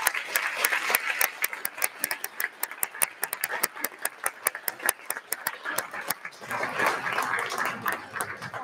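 Audience applause dying away to scattered single claps, with a soft murmur of voices near the end.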